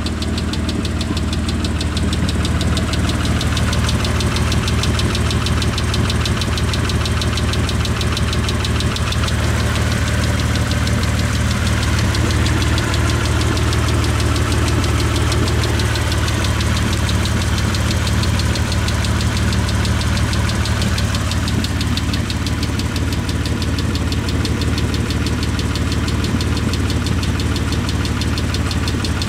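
1998 Mitsubishi 3000GT SL's DOHC V6 idling steadily with a fast, regular lifter tick running through it. The engine sounds loud because of a small hole in the upper exhaust.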